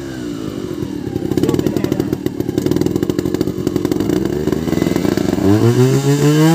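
Trial motorcycle engine running at low revs with light throttle blips, then revved hard about five seconds in, rising and held high for over a second as the bike climbs a rock step.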